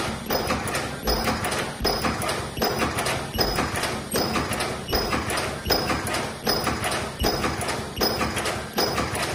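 Automatic ultrasonic elastic-band welding machine cycling steadily, a mechanical clunk about every three-quarters of a second, near 78 pieces a minute. Each stroke carries a short high-pitched tone.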